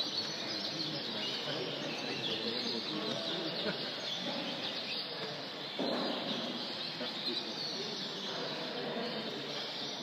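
Many caged show canaries chirping and twittering at once, a dense, steady chorus of short high calls, over a low murmur of voices.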